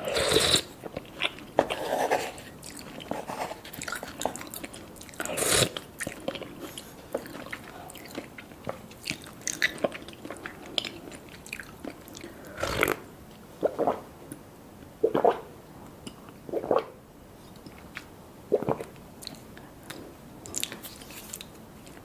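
Close-up eating sounds: chewing and biting, with irregular wet mouth clicks and a few louder crunchy bites, the strongest near the start, about five seconds in and about halfway through.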